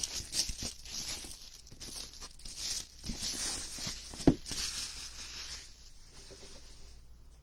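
Plastic wrapping on a sealed trading-card box being torn and crinkled open, with scattered clicks and one sharp knock about four seconds in.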